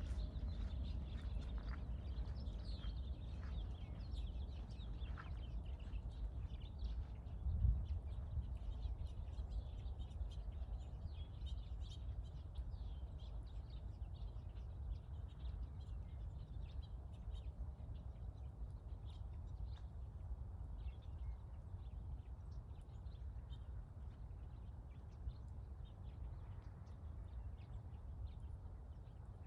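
Small birds chirping and calling over a steady low rumble, with one brief thump about eight seconds in.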